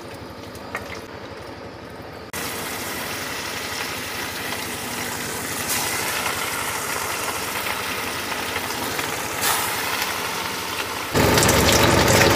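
Fish pieces sizzling as they deep-fry in hot oil in a kadhai. A heavier low vehicle rumble comes in near the end.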